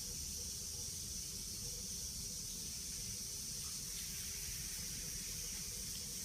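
Steady hiss with a low hum underneath: room background noise, with nothing sudden standing out apart from a faint small sound about four seconds in.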